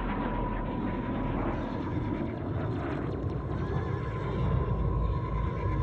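Jet noise from the Eurofighter Typhoon FGR.4's twin Eurojet EJ200 turbofans as it flies a slow roll: a steady, dense rumble with a steady whine over it.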